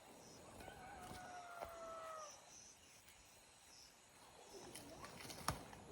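A rooster crowing once, faintly, in one drawn-out call that sags in pitch at the end.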